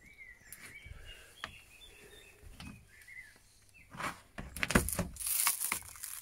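Faint bird chirps, then about four seconds in a couple of seconds of louder rustling, scraping and sharp knocks as a hand works at the torn fiberglass and rotten plywood of a boat floor.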